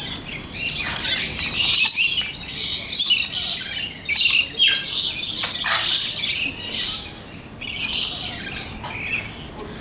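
A flock of parrots chattering and squawking, a dense overlapping mix of shrill calls, with a few sharp falling screeches about four to six seconds in.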